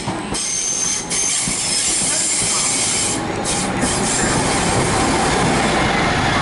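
Transport for Wales passenger train running past along a station platform: a steady rumble of wheels on rail, with a thin high wheel squeal in the first second.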